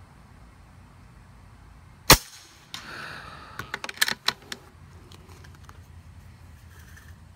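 .25 calibre Rapid Air Weapons PCP air rifle firing one sharp shot about two seconds in. A softer noise follows within a second, then a quick run of sharp clicks.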